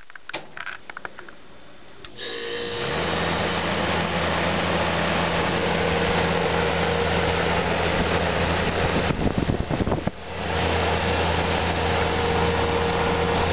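A 1995 Magic Chef 25-pint dehumidifier, cover off, being switched on: after a few light clicks, about two seconds in its fan and compressor start together and run with a steady low hum and rushing air. The sound dips briefly near ten seconds, then carries on.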